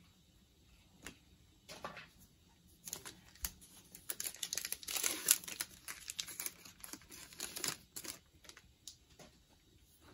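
Foil wrapper of a trading-card pack being torn open and crinkled by hand: a run of crackly rustles, densest from about three to eight seconds in.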